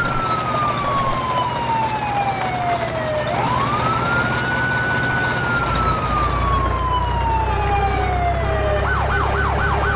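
A siren wailing: the tone rises quickly, holds, then falls slowly, twice over, then switches to a fast yelp near the end. A low steady hum comes in about halfway.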